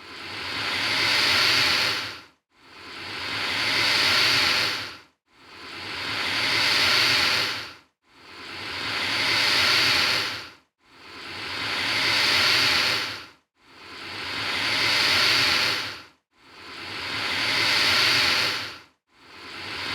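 Alligator hissing: about eight long, breathy hisses at an even pace, one every two and a half to three seconds. Each swells to a peak, then falls away quickly into a brief silence before the next.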